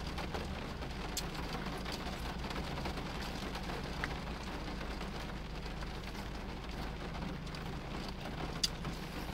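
Steady hum and hiss inside a parked car with the engine idling and the air-conditioning fan blowing, with a few faint clicks.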